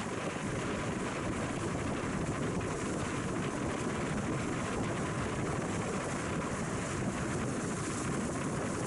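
Steady wind buffeting the microphone on a boat under way, over the low, even rumble of the boat's motor and water moving past.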